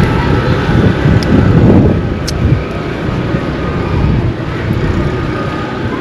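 Wind buffeting the microphone in a loud, uneven low rumble, over the steady sound of road traffic.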